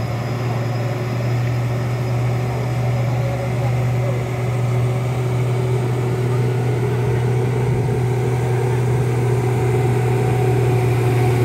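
Loaded Hino 500 truck's diesel engine running at a steady low drone as the truck crawls over a rough dirt road, growing slowly louder as it comes closer.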